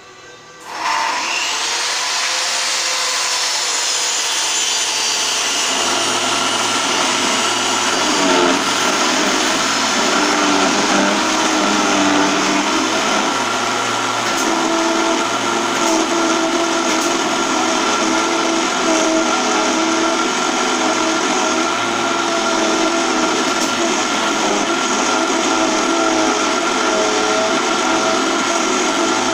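Small benchtop mini wood lathe switched on about a second in, its motor giving a rising whine as it spins up and then running steadily. From about six seconds in, a chisel held against the spinning wooden workpiece adds a rough scraping sound.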